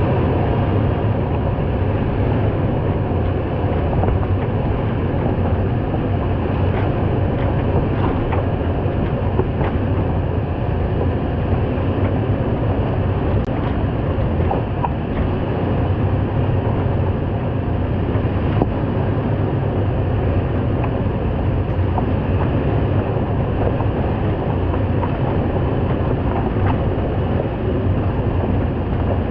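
Toyota 4Runner driving on a rough off-road trail, heard from a bumper-mounted camera: a steady low engine and drivetrain rumble, with a few faint clicks and knocks here and there.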